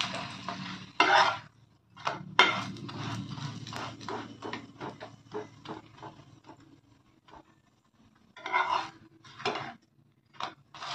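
Spatula scraping and tapping against a nonstick frying pan as a semolina paratha is pressed and turned over. The sound comes in short, separate scrapes and knocks with brief pauses between them.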